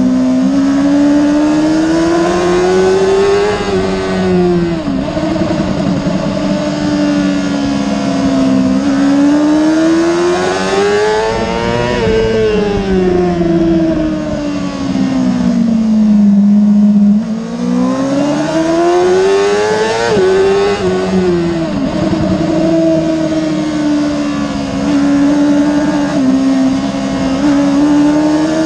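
Sport motorcycle engine heard onboard at racing speed. Its pitch climbs and falls over and over as the bike accelerates and slows through the corners, with a couple of sharp drops in pitch, over a steady rush of wind.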